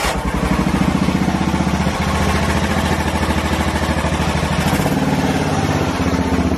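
Off-road mud mower's engine running steadily with a fast pulsing beat, just after starting. It is fed by a newly fitted 26 mm Mikuni slide carburetor with a cold air intake.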